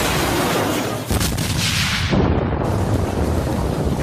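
Cartoon sound effect of a huge magic explosion: a long, loud blast and rumble that surges again about a second in and around two seconds.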